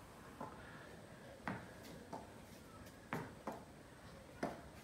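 Tennis ball rally: about six light, sharp knocks of the ball off racket strings and off a timber deck, spaced irregularly from half a second to a second apart.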